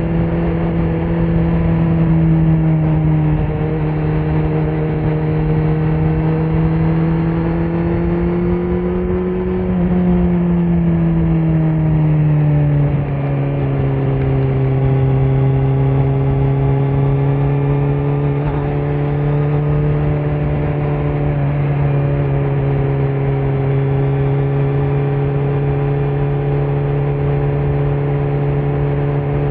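2018 Kawasaki Z900's inline-four engine running through a Leo Vince muffler with no dB killer, under steady throttle while riding. Its pitch climbs slowly for about ten seconds, falls over the next few seconds, then holds steady.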